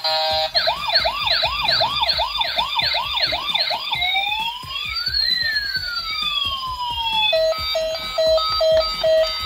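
Toy police car's electronic siren sounding from its small speaker: a fast repeating rising yelp, then from about four seconds in a slower wail gliding up and down, and near the end a steady pulsing beep pattern.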